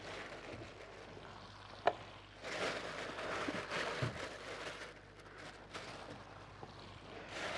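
Soft rustling and handling noises of food preparation at a kitchen counter. It is loudest for a couple of seconds around the middle.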